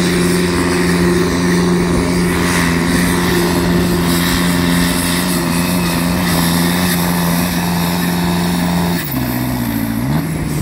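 Landini 9880 pulling tractor's engine running at high, steady revs under full load as it drags the weight-transfer sled. About nine seconds in, the revs fall away sharply as the pull ends, then pick up again briefly.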